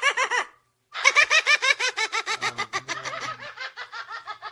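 A parrot laughing in a high-pitched, rapid run of 'ha-ha' pulses, about eight a second. The laugh stops for a moment about half a second in, then starts again and trails off toward the end.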